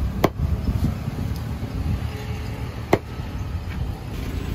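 Two sharp chops of a large knife cutting through rohu fish into a wooden chopping block, nearly three seconds apart, over a steady low rumble.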